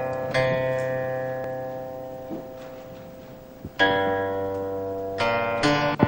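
Background music on a plucked string instrument: slow single notes, each left to ring and fade, with a note about a second in and three more following in the last two seconds.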